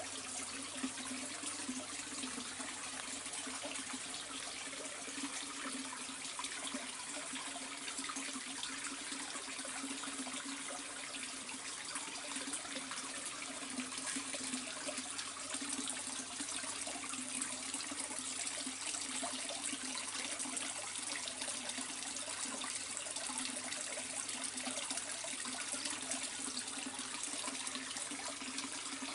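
Water cascading into a koi pond, splashing steadily without a break, with a steady low hum underneath.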